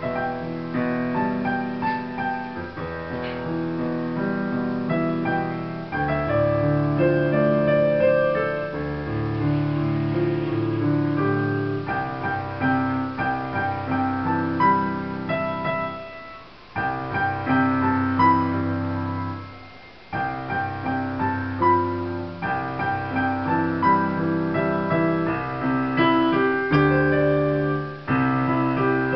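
Digital piano being played: a slow piece of sustained chords with a melody over them, with two short breaks between phrases a little past the middle.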